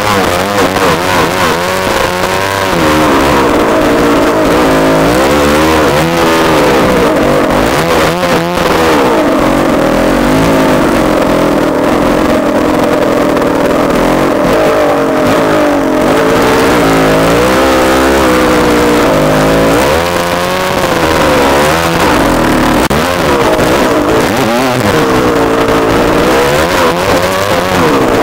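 Dirt bike engine, a Honda CR250 two-stroke, running hard and revving up and down over and over as the bike is ridden through snow.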